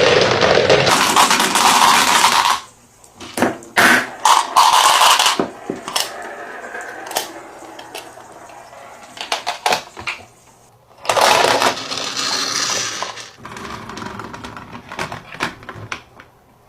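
Toy cars carrying marbles rolling and clattering down a track. Loud rolling rumbles at the start, about four seconds in and about eleven seconds in alternate with quieter stretches of many sharp clicks and knocks.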